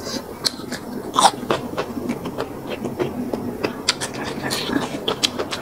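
Close-miked eating sounds: chewing with many small mouth clicks and smacks, and one longer, louder noise about a second in.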